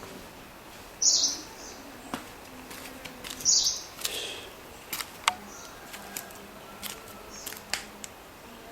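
Wild birds calling: two loud, high, harsh calls about a second and three and a half seconds in, amid many short, sharp chirps.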